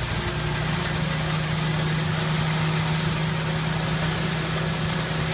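Concrete mixer truck's diesel engine running steadily with a constant low drone while the truck pours concrete into the pool.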